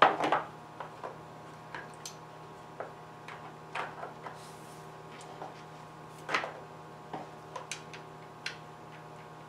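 Chainsaw's clutch side cover being fitted over the bar and its bar nuts worked down by hand: irregular clicks and knocks of plastic and metal, a louder clatter at the very start and again about six seconds in. A steady electrical hum runs underneath.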